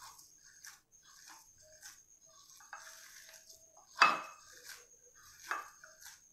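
Fresh chhena being kneaded by hand on a glass plate: soft squishing strokes repeating about twice a second, with two louder clinks against the glass plate about four and five and a half seconds in.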